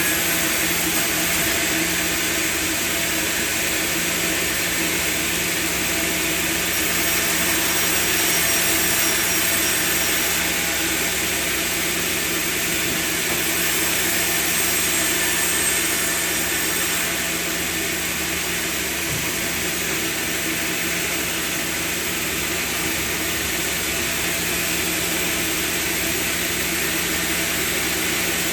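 Sawmill machinery running steadily: a continuous machine hum under a high, even rushing noise.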